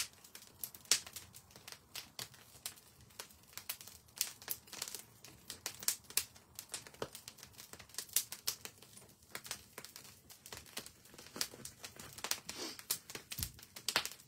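Wood fire of burning logs in a stone fireplace crackling, with many irregular sharp pops and snaps.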